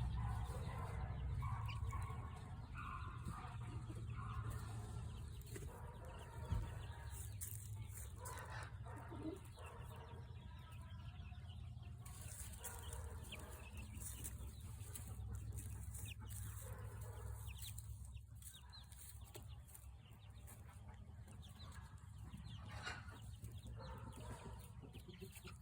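A few chickens clucking on and off, short scattered calls overlapping, over a steady low rumble.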